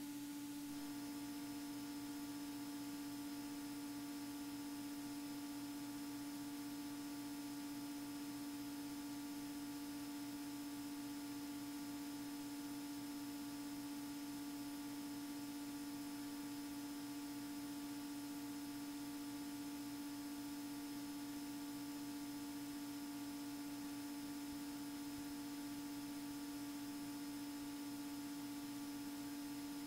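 Faint, steady electrical hum in a light aircraft's intercom audio feed: one strong low tone with fainter higher tones over a light hiss, unchanging throughout.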